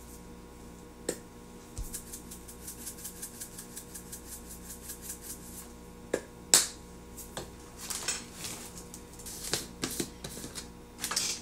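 A spice shaker of celery seed being shaken over a bowl, rattling in a quick even run of small ticks for a few seconds. Then a few sharp clicks and knocks of containers being handled, the loudest about halfway through.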